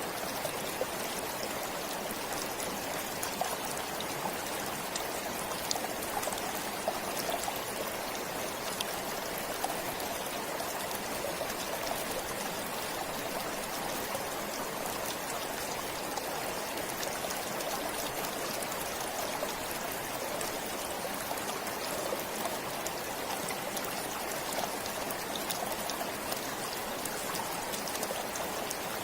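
Stream of water flowing steadily over stones, an even rushing and trickling with small splashes throughout.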